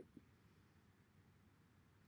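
Near silence: faint room tone, with two soft, brief knocks right at the start.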